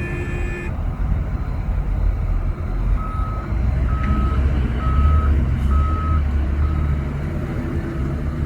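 Heavy diesel machinery running with a deep rumble that swells in the middle, while a reversing alarm sounds five evenly spaced beeps, a bit under one a second. A short horn toot sounds at the very start.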